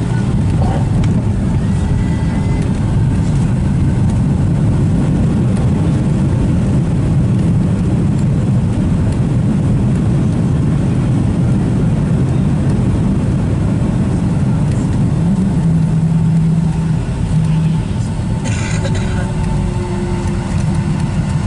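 Cabin noise inside a Boeing 757-200 rolling on the ground just after landing: a loud, steady low rumble of engines, airflow and wheels. It eases slightly after about 17 seconds, and there is a brief burst of higher-pitched noise soon after.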